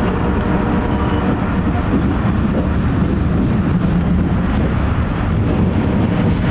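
Amtrak passenger coach rolling along the track, heard from inside the car: a steady low rumble of wheels on rail with a few faint steady tones above it.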